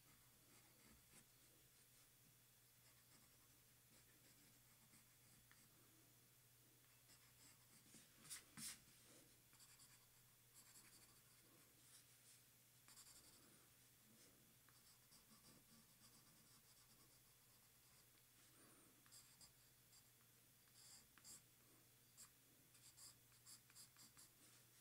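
Faint scratching of a Staedtler Mars Lumograph Black pencil drawing on paper card, with a couple of louder strokes about eight seconds in and a run of quick short hatching strokes near the end.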